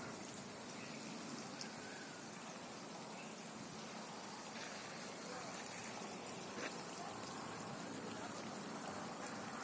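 Steady, even outdoor hiss with a single sharp tick about six and a half seconds in.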